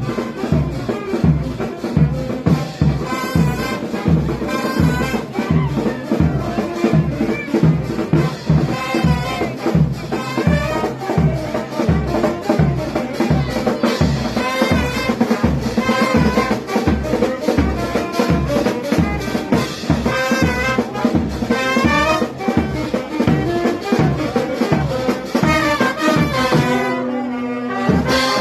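Frevo played by a brass band: trumpets and trombones over a fast, steady drum beat, with a long held low brass note near the end.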